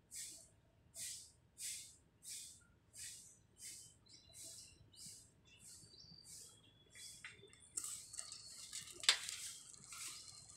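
A broom sweeping the ground in steady, swishing strokes, about one every half-second or so. The strokes grow fainter past the middle, then turn into rougher, denser scratching with a sharp snap near the end.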